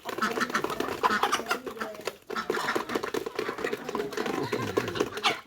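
Domestic ducks and chickens calling, with fast chattering notes repeating in quick succession.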